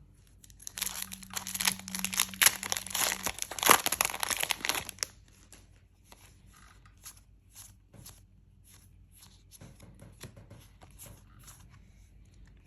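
A booster pack wrapper crinkling and tearing open for about four seconds, then sparse soft clicks and taps of trading cards being handled.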